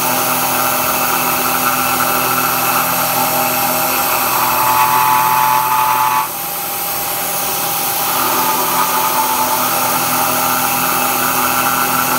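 CNC-converted Bridgeport milling machine cutting hot-rolled steel with a half-inch three-flute carbide end mill at about 2,500 rpm: a steady cutting whine made of several held tones. The sound drops abruptly about six seconds in and builds back over the next two seconds.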